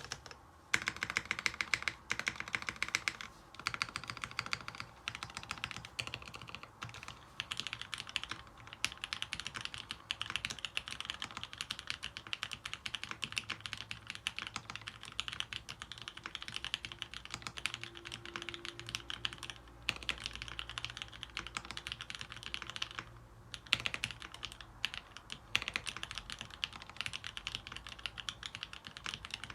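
Continuous typing on the Salamander custom mechanical keyboard, built with vintage Cherry MX Black linear switches lubed with Krytox 105, Permatex-lubed stabilizers, 65 g springs and a PVC plate: a dense run of keystroke clacks with short breaks near the start and about three quarters of the way through.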